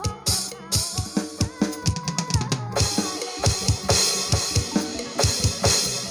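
Music led by a drum kit: a fast, even kick-drum beat with snare hits, over a pitched melody line, with cymbals coming in about three seconds in.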